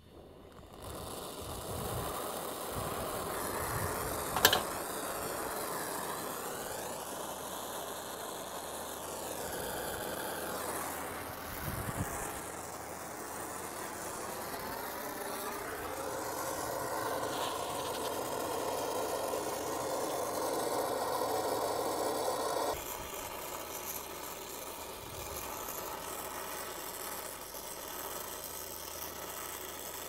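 Steady rushing hiss of gas flowing in a brazing setup, with one sharp click about four seconds in and an abrupt drop in tone about three-quarters of the way through.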